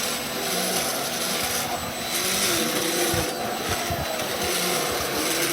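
Vacuum cleaner running steadily, an even whooshing motor noise with a steady hum, with a few low bumps about three seconds in.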